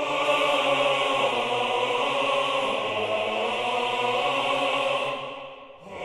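Dramatic choral music: voices holding one sustained chord, cutting in suddenly and fading out near the end.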